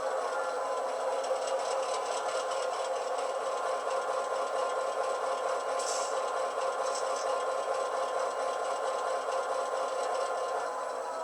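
Recorded GP9 diesel locomotive engine sound running steadily from a LokSound v5 model-train sound decoder, played through two tiny sugar-cube speakers in a sealed plastic enclosure, with short hisses about six and seven seconds in.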